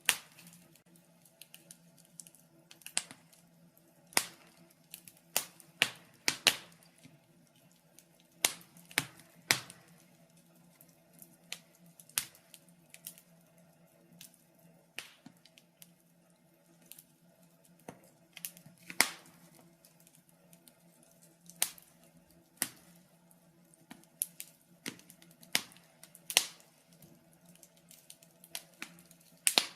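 Wood fire crackling in a fireplace: irregular sharp pops and snaps, some close together and some a few seconds apart, over a faint steady low hum.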